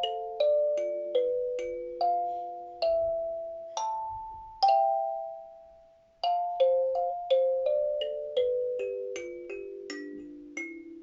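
Kalimba (thumb piano) played slowly: one metal tine plucked at a time, each note ringing on and fading under the next. Near the middle the playing stops for about a second and a half while the last note dies away, then picks up again.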